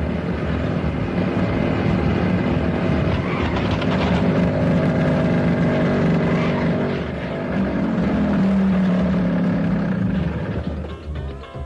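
Motorcycle engine running and revving, its pitch rising and falling as the bike rides past. It is loudest a little past the middle, then fades just before the end.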